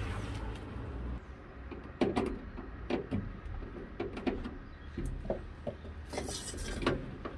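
Handling noises: a series of scattered light knocks and clicks, with a brief hissing rustle about six seconds in. A low steady hum stops about a second in.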